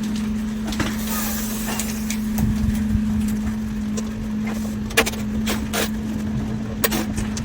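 Scattered sharp metallic clicks and clinks of a spanner and bolts as a wood chipper's feed chute is unbolted, over a steady low hum.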